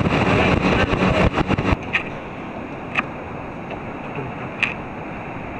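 Motorboat under way on open sea: wind buffets the microphone hard for the first couple of seconds, then a steadier rush of motor and water follows, with a few brief ticks.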